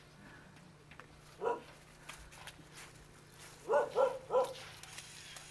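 A dog barking: one bark about a second and a half in, then three quick barks near the end, over faint clicks and knocks.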